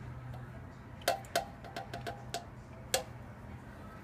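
Metal food cans knocking and clinking, with sharp knocks that ring briefly: two about a second in, a run of lighter taps, and another near three seconds, as the pie filling is tipped out of the cans.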